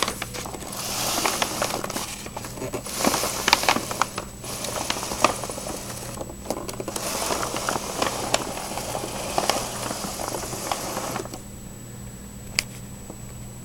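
Close rustling and crinkling with many small clicks as things are handled, stopping suddenly about eleven seconds in, then one sharp click near the end. A steady low electrical hum and a faint high whine run underneath.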